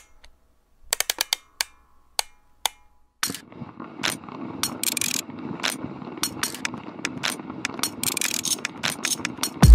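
Background music intro: sparse sharp clicks at first, then about three seconds in a fuller layer comes in with steady clicking percussion, and a deep bass hit lands near the end.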